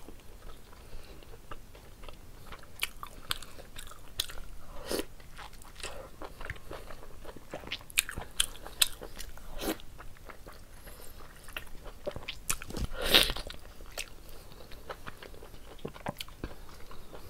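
Close-up mouth sounds of a person eating mutton curry off the bone: wet biting, chewing and smacking clicks, irregular and frequent. There is one longer, louder burst of noise about thirteen seconds in.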